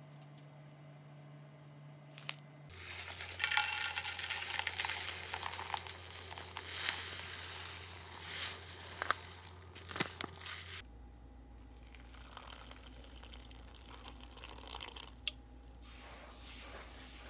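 Coarse glutinous rice flour (shiratamako) pouring into a stainless steel bowl with a hissing rush, starting about three seconds in and loudest at first. After about eleven seconds it gives way to softer, scattered crunching as a hand crumbles and stirs the granules in the bowl.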